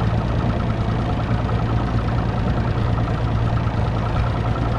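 Boat's outboard motor running steadily at a constant pitch.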